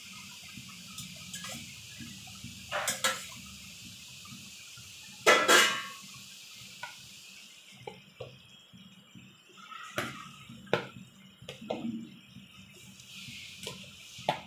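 A steel spoon clinking and scraping against a non-stick pan as boiled eggs are set into a boiling curry, with the curry bubbling underneath. The clinks come a few at a time, the loudest about five seconds in.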